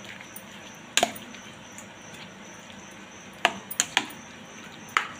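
Spoon knocking against a bowl while stirring grated cucumber into yogurt: a handful of sharp clicks, one about a second in, three close together a little past three seconds, and another near the end.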